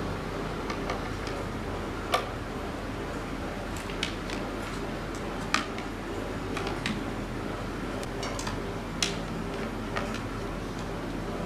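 Scattered light clicks and knocks of cables, plugs and plastic parts being handled, about five or six sharp ones spread over several seconds, over a steady low hum.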